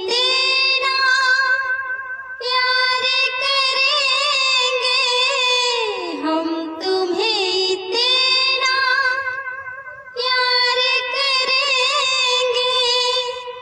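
A woman singing a Hindi song solo in a high voice, holding long notes with vibrato in phrases a few seconds long, with brief breaths between them.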